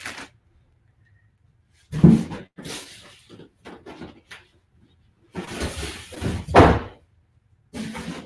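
Large styrofoam packing shell being pulled off a plastic-wrapped bust and carried aside. Scraping and rustling, broken by knocks, with two louder thumps: one about two seconds in and one past the middle.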